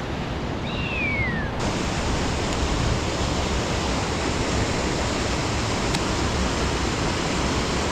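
Steady rush of water running off a small waterfall over rocks. About a second in, a short whistle falls in pitch.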